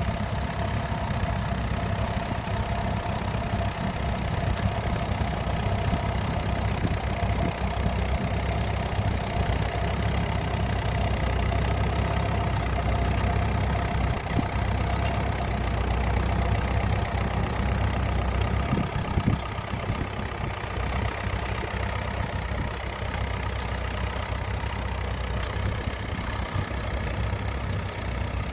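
Massey Ferguson T20 tractor engine running steadily with a constant low rumble.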